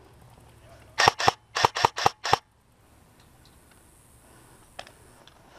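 Airsoft gun firing six shots in quick succession over about a second and a half, each a sharp click.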